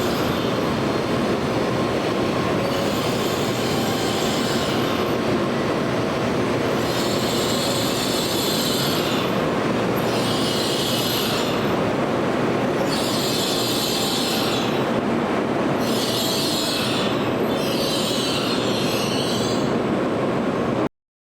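Tokaido Shinkansen train running, a steady dense rumble with high-pitched squealing hiss coming and going every second or two. It cuts off suddenly near the end.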